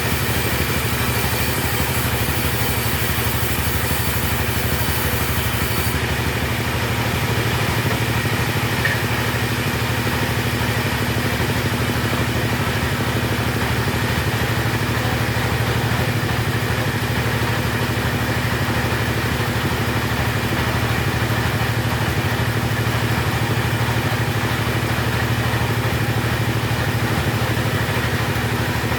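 Two-stroke chainsaw engine running steadily at an even pitch while sawing timber.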